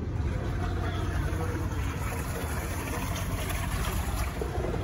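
ePropulsion Spirit 1.0 Plus electric outboard running in a clear demonstration tank, its propeller churning the water with a steady, low rumble.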